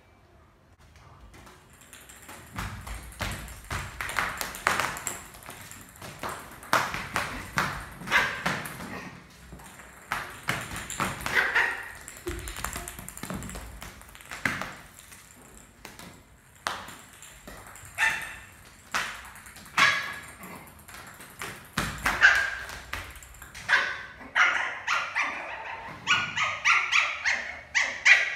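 Lhasa apso puppy barking and yipping over and over in play, faster and almost without pause near the end, mixed with sharp taps of a plastic cricket bat and ball on a tiled floor.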